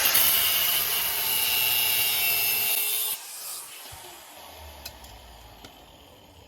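Small angle grinder (baby grinder) grinding metal, trimming the protruding end of a threaded insert flush with a cylinder head. It stops about three seconds in, and the sound fades away.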